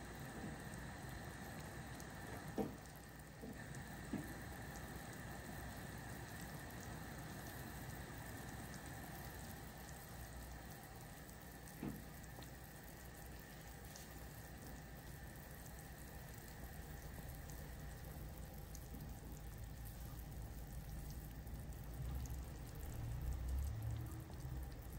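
Chicken stock at a rolling boil in a large aluminium stockpot: steady bubbling with a few soft pops, growing louder and lower near the end.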